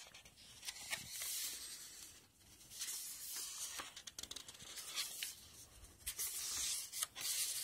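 Paper pages of a paperback book being turned and flipped back and forth by hand: several short rustles and soft flaps of paper.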